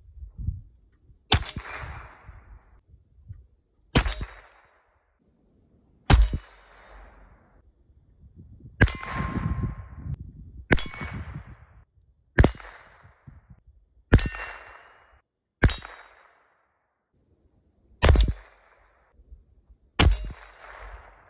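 Ten sharp metallic clanks, about two seconds apart, each ringing briefly with a high metallic tone before dying away.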